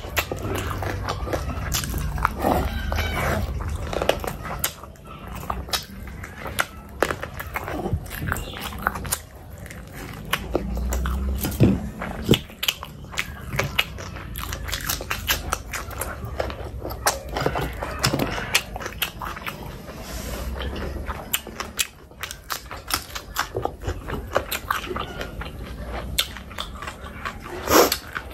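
Close-miked chewing, biting and wet lip-smacking of a person eating curry, with many irregular sharp clicks and squelches.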